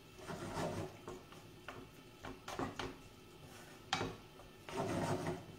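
Wooden spoon stirring rice in a frying pan, with scattered light knocks and scrapes of the spoon against the pan.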